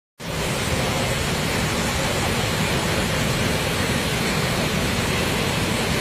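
A large waterfall in full flood: a steady, loud rush of a heavy volume of water pouring over the falls.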